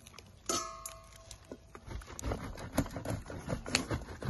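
Hard Gouda cheese being grated on a stainless steel box grater standing in a steel bowl. About half a second in there is a metallic clang of the grater against the bowl that rings briefly, followed by quick rasping strokes of the cheese across the grater, a few a second.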